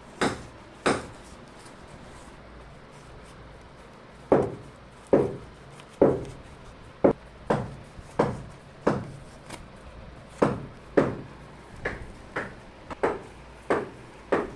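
Knife cutting through the packing tape on a cardboard box: a string of sharp scraping knocks against the cardboard, two near the start, then after a pause of about three seconds a steady run of strokes every half second to a second.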